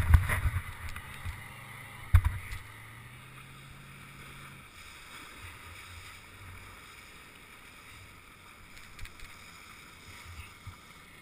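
Water splashing and slapping against a helmet-mounted camera bobbing at the surface, with sharp splashes at the start and again about two seconds in. Under it a motorboat engine runs with a low steady hum that stops about halfway through, leaving quiet water lapping and light wind.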